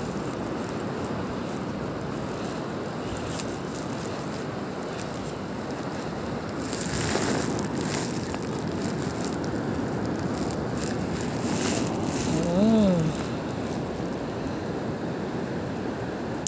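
Steady wind buffeting the phone's microphone over the wash of surf on a sandy beach. About seven seconds in come rustles and soft knocks of the phone being handled as a shell is picked up, and near the end a brief rising-then-falling hum from a person.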